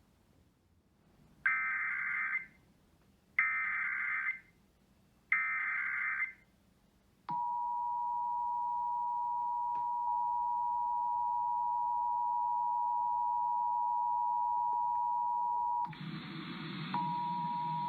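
Emergency Alert System alert opening: three SAME header data bursts of about a second each, rasping digital chirps, followed about seven seconds in by the steady two-tone EAS attention signal (853 and 960 Hz). Near the end a rougher noise joins and the tone breaks off for about a second before resuming.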